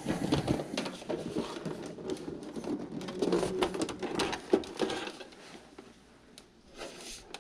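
A Toshiba VCR being picked up and turned over by hand: its plastic case knocks and creaks, and the AV cables and plugs hanging on it tap against it, in a quick run of clicks and clunks. The clatter dies down about five seconds in.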